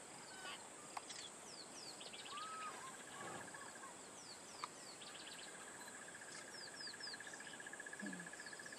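Faint bush ambience of birds and insects: short, repeated downward-sliding bird chirps and quick trills over a steady high hiss. A fast-pulsing insect trill starts about five seconds in and continues.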